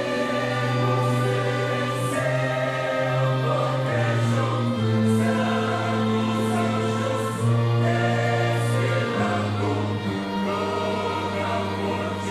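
A church choir singing a gospel hymn with orchestral accompaniment, held bass notes changing every second or two under the voices.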